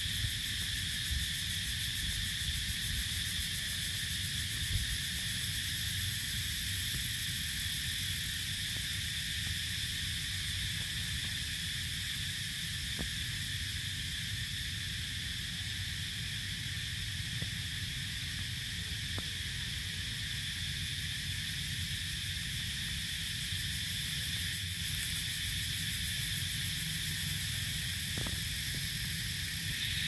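Steady, unbroken high-pitched drone of a forest insect chorus, over a low rumble of wind or handling noise on the microphone, with a few faint clicks.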